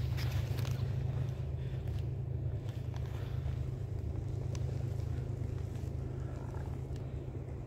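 Footsteps on a forest floor of dry conifer needles, twigs and leaves, with scattered crackles and snaps, over a steady low rumble.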